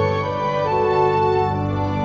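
Slow background music of long, sustained chords over a held low bass note, the notes changing every half second or so.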